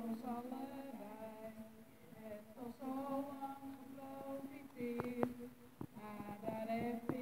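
A woman singing into a handheld microphone, holding long, steady notes with short breaks between phrases.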